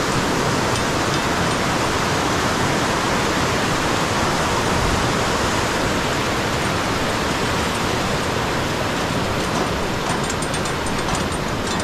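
White-water river rapids rushing steadily, a constant loud noise of water, with a few light clicks near the end.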